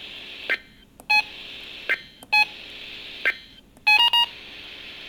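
Brief touch-tone (DTMF) beeps on a radio broadcast feed: four short tones, the last two close together, over steady radio hiss with a few soft clicks between them.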